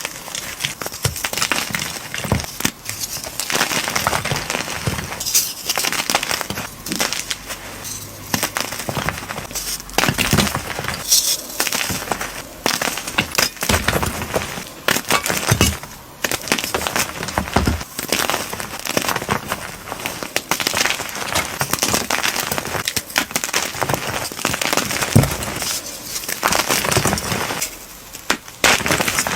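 Gym chalk slime being squeezed and pressed by hand, giving a dense, continuous crackling and crunching.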